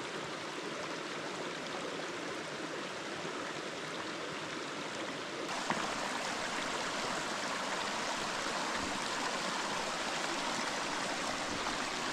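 Shallow, rocky creek running over cobbles, a steady rush of water that grows louder about five and a half seconds in.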